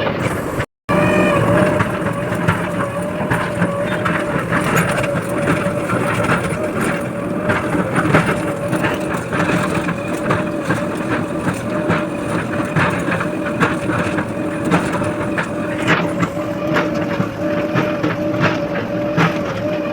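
JCB 4DX backhoe loader's diesel engine running steadily under load, with frequent knocks and clattering from the machine at work. The sound drops out briefly just under a second in.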